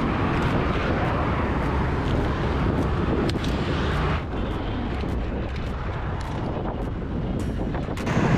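Wind rumbling on the microphone of a bicycle rider's camera while riding, over the steady hum of heavy street traffic, with a few light clicks.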